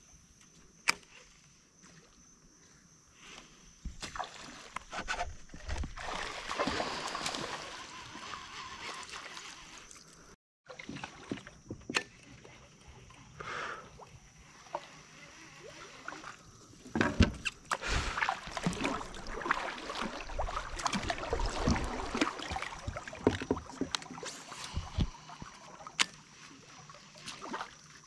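Kayak paddling: water splashing, dripping and sloshing against the hull in two spells, full of small clicks and knocks. The spells are separated by a short silent gap about ten seconds in, where the recording cuts.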